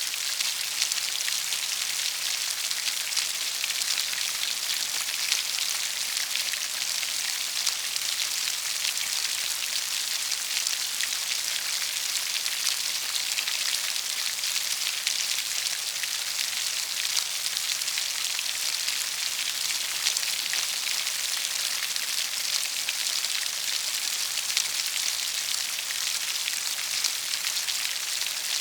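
Steady rain falling: a dense, even patter of drops over a constant hiss.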